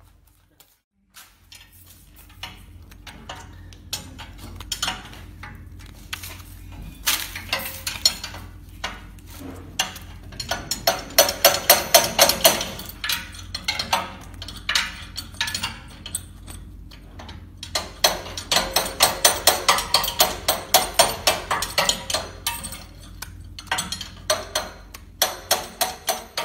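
Rapid metallic tapping and clinking in two long runs of about five strikes a second, with scattered single knocks between, from hand tools working on the metal parts of a puffed-snack extruder (screw, barrel, die plate). A steady low hum sits underneath.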